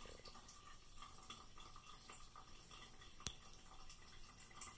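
Faint trickle and drip of a thin stream of tap water running from a gooseneck faucet into a porcelain sink while a cat laps at the stream. A single sharp click about three seconds in.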